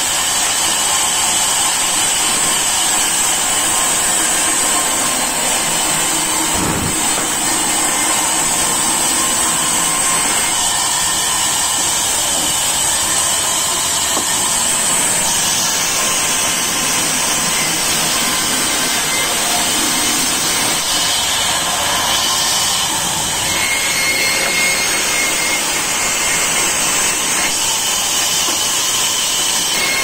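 Large vertical band saw running steadily and cutting a timber log, with a steady high-pitched tone above the sawing noise. A single knock about seven seconds in.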